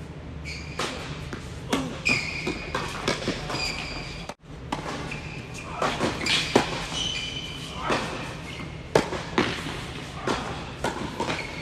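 Tennis balls struck by rackets and bouncing on an indoor hard court during doubles rallies: sharp knocks at an irregular pace, echoing in the large hall, with short high squeaks between them.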